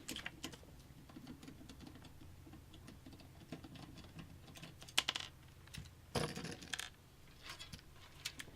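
Scattered light clicks and small metal taps of screws and a tool being worked at the bottom of a computer case, with a sharper click about five seconds in and a brief scraping rustle just after six seconds.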